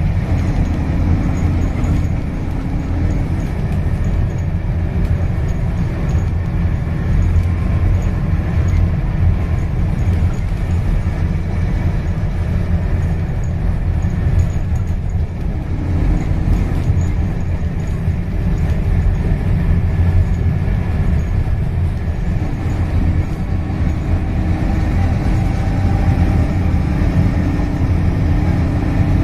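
Scania K230UB single-deck bus on the move, heard from inside the passenger saloon: its five-cylinder diesel engine runs with a steady low drone under the road and tyre noise, and the engine note shifts a few times.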